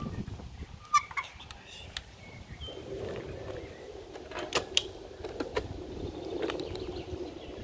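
Outdoor ambience under a low rumble, with scattered short bird chirps and several sharp clicks.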